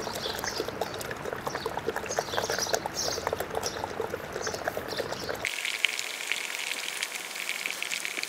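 A stick stirring wallpaper-type gum adhesive thinned with water in a bucket: soft wet sloshing with many small irregular clicks.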